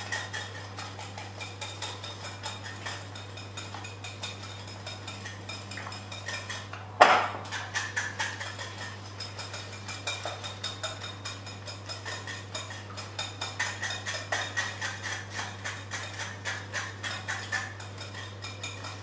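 Wire whisk beating egg whites in a glass bowl, its wires ticking rapidly and steadily against the glass, with one louder clink about seven seconds in.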